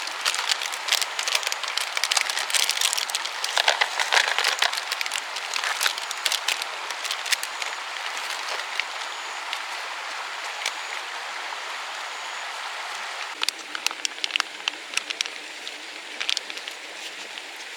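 Steady rain falling, with many sharp drop hits ticking on a surface. The hits come thickly for the first half, thin out, then pick up again about thirteen seconds in.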